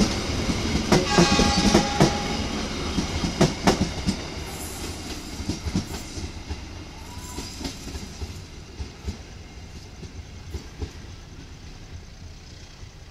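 Steel wheels of passenger train coaches clattering over rail joints and points as the last cars pass, the clicks thinning out and the sound fading steadily as the train moves away. A short high tone sounds about a second in.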